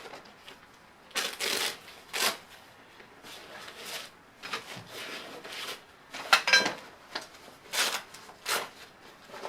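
Parts of a light stand kit being handled and set down on a table: a string of irregular clacks and clinks, about six in all, the loudest about six and a half seconds in with a short metallic ring.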